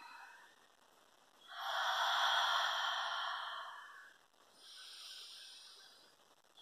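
A woman's deep, audible breathing during a held hip stretch: a long, loud breath out through the mouth starting about a second and a half in, then a second, softer breath.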